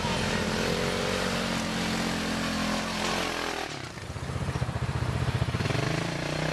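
Off-road buggy engine running close by, its pitch rising and falling as the throttle is opened and eased off. It dips briefly a little past halfway, then revs up again.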